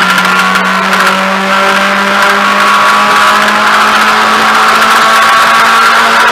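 Mazda MX-5 race car's four-cylinder engine, heard from inside the cabin under acceleration, its revs rising slowly and steadily in one gear down the straight, over wind and road noise.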